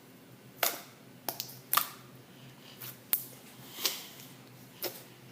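Slime being worked by hand, its air bubbles popping in several sharp little pops and clicks at irregular intervals.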